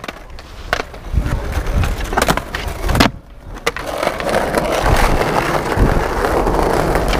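Skateboard on stone paving slabs: several sharp clacks of the board hitting the ground in the first three seconds, the loudest about three seconds in, then from about four seconds a steady rolling rumble of the wheels over the paving.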